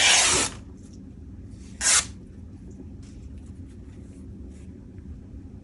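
Two short rasping rustles of craft materials being handled, the first lasting about half a second and a shorter one about two seconds in, followed by faint small clicks.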